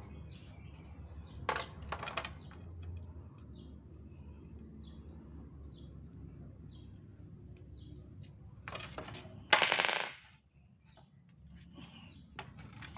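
Scattered light clicks and knocks of plastic parts and tools being handled. About ten seconds in comes a short, loud rasp with a high squeal, as insulating tape is pulled off its roll.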